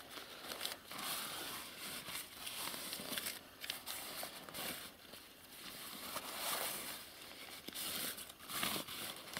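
Irregular crinkling, rustling and scraping of a plastic bag and paper rubbed over the wet rubber floor of an inflatable boat, wiping out the water left in it.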